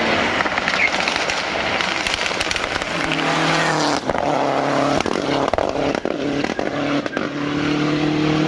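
Lancia Delta Integrale rally car's turbocharged four-cylinder engine at full throttle, first passing close by, then heard from further off holding a steady high note as it climbs away. A few sharp pops come through about halfway.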